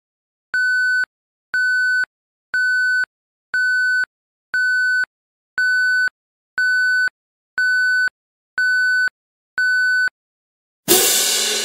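Countdown timer sound effect: ten short electronic beeps, one a second, each a steady high tone about half a second long. Near the end, a loud cymbal crash breaks in and rings down.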